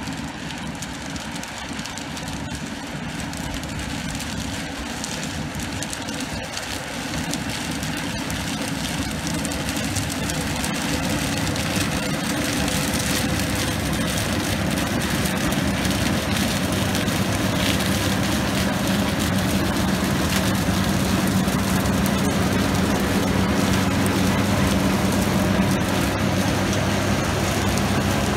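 New Holland TC5070 combine harvester running while harvesting sunflowers: a steady engine and threshing drone that grows gradually louder as the machine comes close and passes by.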